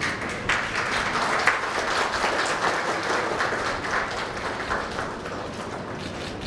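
Audience applauding, a dense patter of many hands clapping that dies down about five seconds in.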